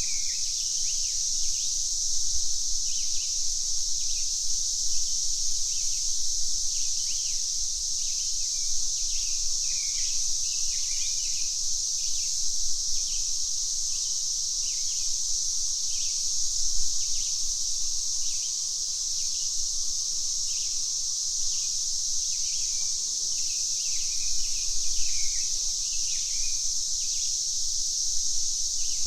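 Cicadas droning in a steady, high-pitched chorus, with birds chirping in short, repeated notes over it all through.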